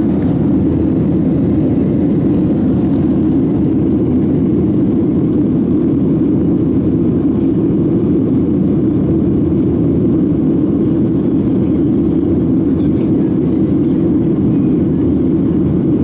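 Steady cabin roar of a Boeing 737-700 in flight: its CFM56-7B jet engines and the rushing air around the fuselage make an even, low rumble that stays level throughout.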